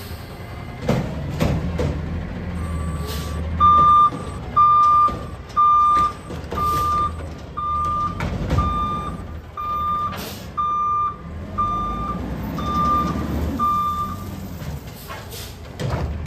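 CNG automated side-loader garbage truck running, with a few metal clanks as its arm dumps a yard-waste cart, then its reversing alarm beeping at a steady pitch about once a second, eleven times, as it backs up.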